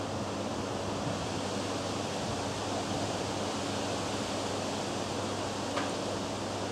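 Mobile crane's engine running steadily: a constant rushing noise with a low hum underneath, and one brief click near the end.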